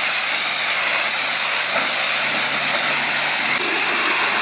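Pressure washer spraying a high-pressure jet of water onto a van's bodywork: a loud, steady hiss.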